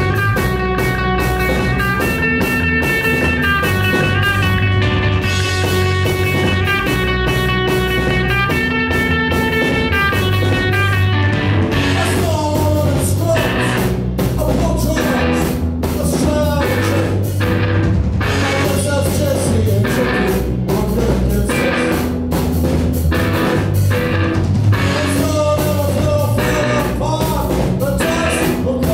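Post-punk band playing live: bass, electric guitar and drums. A repeating ringing guitar figure sits over steady bass at first. About twelve seconds in, the drums hit hard and a male singer comes in.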